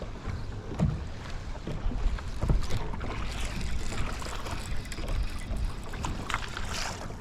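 Wind rumbling on the microphone aboard a small fishing boat, with scattered light knocks and clicks.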